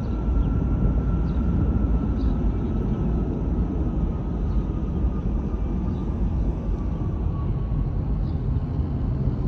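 Jet airliner on approach to land: a steady low rumble with a faint engine whine that slides slowly lower in pitch.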